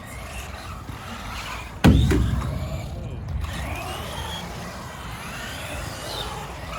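A toy-grade electric RC truck on a skatepark: a single hard knock about two seconds in, the truck landing or striking the ramp, then the faint whine of its electric motor rising and falling as it is driven.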